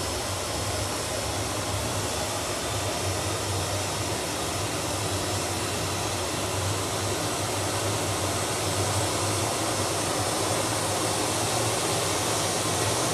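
Jet engines of a Boeing 737 Business Jet running on the ground, a steady rushing roar that grows slightly louder.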